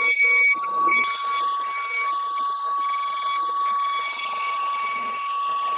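CNC router running, with a steady high-pitched whine and a hiss that sets in about a second in.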